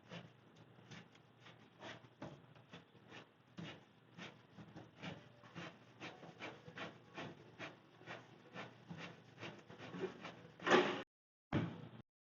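Quick, steady scraping strokes, about three a second, from hand-tool work on a leaking sink basket strainer, with two louder scrapes near the end before the sound cuts off abruptly.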